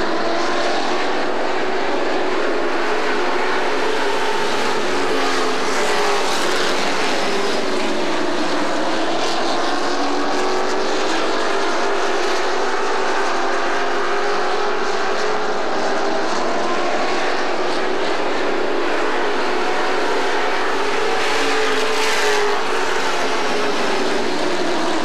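Several Pro Truck race trucks' Chevrolet crate engines running hard around an asphalt oval, overlapping engine notes rising and falling in pitch as the trucks go through the turns and past.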